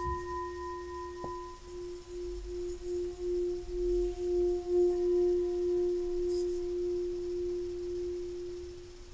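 Tibetan singing bowl ringing on one steady low note with fainter higher overtones. The note wavers in a slow pulse, swells near the middle and then fades gently.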